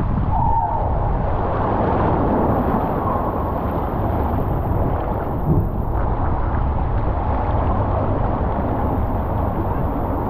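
Rushing water and the rider sliding through it on a bowl waterslide, with wind rumbling on the microphone; a brief bump about halfway through.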